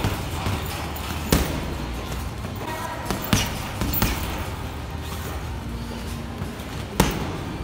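Boxing gloves punching a Twins Special heavy bag: a handful of sharp thuds at uneven intervals, including a quick double about three and four seconds in, with the hardest punch near the end.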